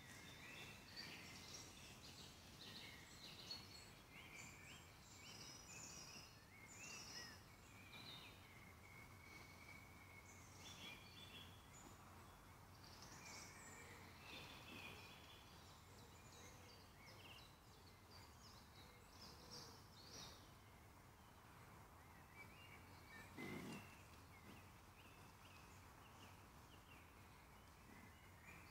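Faint woodland birdsong, several small birds chirping and trilling at once. One short knock is heard about four-fifths of the way through.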